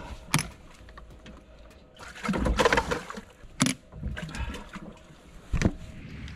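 Handling noise on a bass boat deck as a freshly caught bass is stowed: a few sharp knocks and a short, splashy rushing noise about two to three seconds in.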